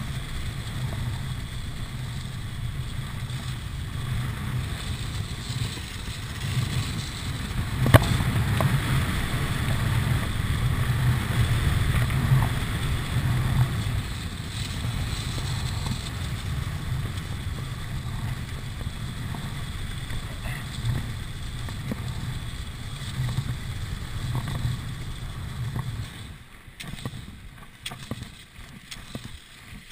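Steady wind rushing and rumbling on the camera microphone, with cross-country skis hissing in groomed classic tracks during a fast downhill tuck. A sharp click comes about 8 s in. Near the end the rush dies away and turns uneven as the skier slows and starts poling.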